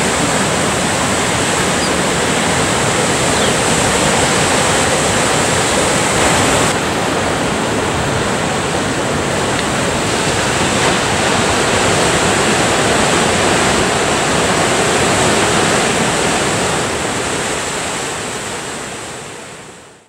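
Ocean surf: a steady rush of breaking waves, fading out near the end.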